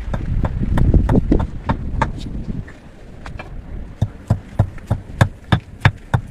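A hammer striking seeds or grain on a flat stone slab in sharp, regular knocks, about three a second, from about four seconds in. Before that, a low rumbling noise with scattered clicks.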